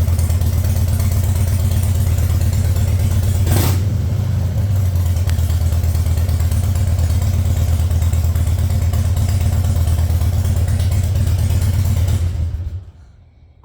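Fuel-injected 2004 Harley-Davidson Dyna Wide Glide V-twin engine idling steadily, running again now that the failed main relay has been replaced. A short burst of noise comes about three and a half seconds in, and near the end the engine is switched off and dies away within about half a second.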